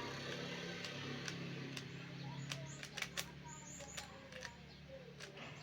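Plastic Rubik's cube being turned by hand: irregular sharp clicks of the layers snapping round, coming more often from about halfway through.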